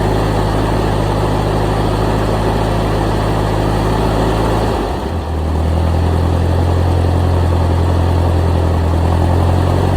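Ford 2N tractor's four-cylinder engine running just after a hard start, not sounding very good. About halfway through it dips briefly and its note changes, then runs steadily again.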